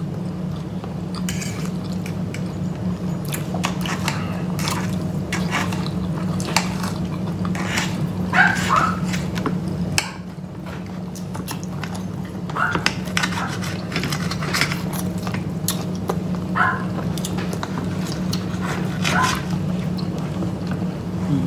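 Pet Schnauzer whining in short high cries, about five times, over cutlery clicking on plates and a steady low hum.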